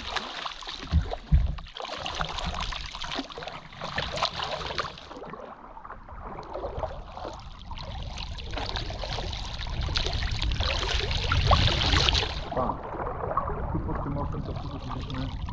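Kayak paddles dipping and splashing in a river, with water running and dripping off the blades. A couple of dull knocks about a second in.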